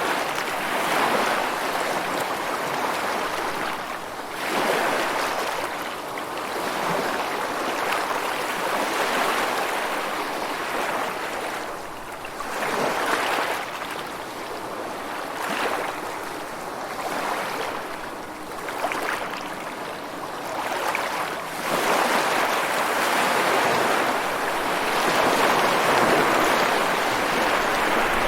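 Rushing water, with no music, swelling and ebbing every few seconds and rising to a longer, louder stretch near the end.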